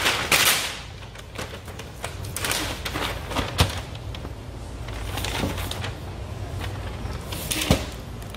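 Brown paper bag rustling and crinkling as rolls of vinyl are packed into it, with two sharp knocks, one about three and a half seconds in and one near the end.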